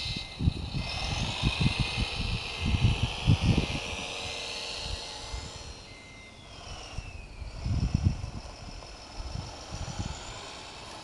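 1/14-scale RC Komatsu WA470-6 wheel loader's motors whining as it drives, the pitch rising and falling with speed and falling steadily about two-thirds of the way in. Gusts of wind buffet the microphone in the first few seconds and again near the end.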